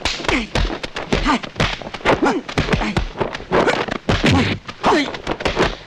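Martial-arts fight soundtrack: a rapid, uneven run of sharp hits and thuds, mixed with short pitched sounds that slide down in pitch.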